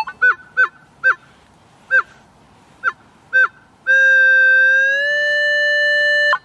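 Minelab CTX 3030 metal detector giving a target signal: a string of about seven short chirps as the coil sweeps across the target, then a long steady tone from about four seconds in that steps up slightly in pitch and cuts off sharply. A really sweet signal, the kind a buried coin gives.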